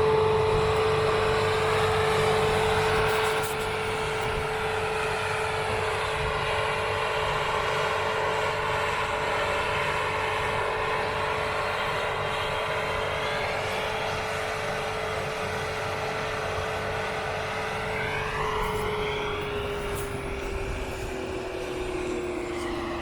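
A steady whining motor note holding one pitch with drifting overtones, which sweep upward briefly near the end while the main note sinks slightly.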